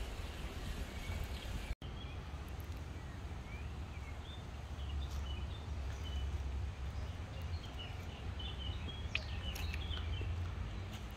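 Small birds chirping in short scattered calls, most of them in the second half, over a steady low rumble. A few light clicks near the end.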